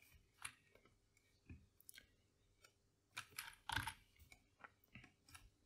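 Faint clicks of a computer mouse and keyboard, scattered through, with a small flurry of clicks about three to four seconds in.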